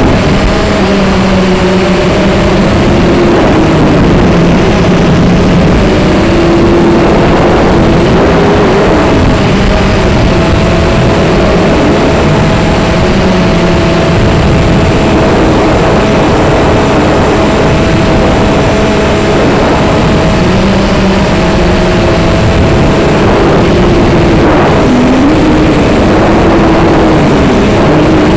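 Drone's electric motors and propellers whirring, picked up close by its own onboard camera: a loud, steady whirr with several tones that drift up and down in pitch as the motor speeds change.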